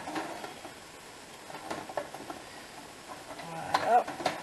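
A few light clicks and taps of small craft supplies handled on a worktable, with a short voice sound near the end.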